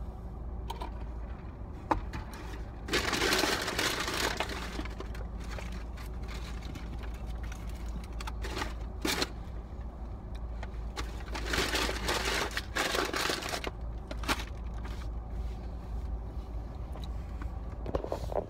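Paper food wrapper and bag crinkling and rustling in two longer bursts, about three seconds in and again around twelve seconds, with scattered short clicks between, over a steady low hum.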